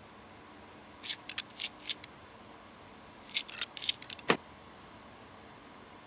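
Two quick clusters of light, high-pitched clicks and rattles from small hard parts being handled, then a single sharper click just after four seconds in.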